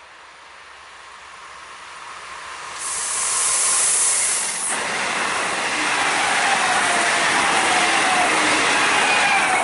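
ČD class 680 Pendolino electric tilting train passing at speed: the rush of wheels and air grows as it approaches, with a loud hiss as the front goes by about three seconds in, then a steady roar as the cars pass, with whining tones falling in pitch.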